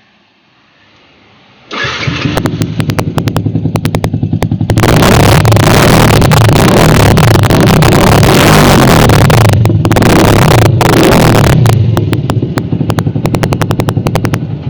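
Yamaha R15 V2 motorcycle's single-cylinder engine, on an aftermarket exhaust with no dB killer fitted, starting about two seconds in and idling with a pulsing note. It is then held at high revs, much louder, with a couple of brief throttle dips, and settles back to idle near the end. The exhaust note is loud, which is why a dB killer is to be fitted.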